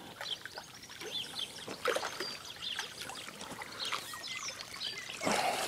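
Irregular water splashing and sloshing as a hooked common carp thrashes at the surface while being drawn to the net, with small birds chirping in the background.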